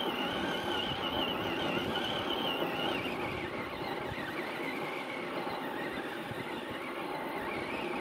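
Radio-controlled car's electric motor whining as it runs, the pitch wavering and dropping about three seconds in, then climbing again near the end. The car is surging to full speed and slowing down on its own, a fault the driver can't account for.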